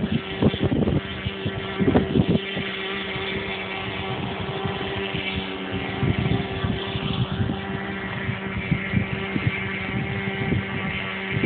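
Electric MXS-R model plane's motor and propeller whine as it flies: a steady hum with a faint pitch glide as it passes. Wind buffets the microphone throughout and is strongest in the first couple of seconds.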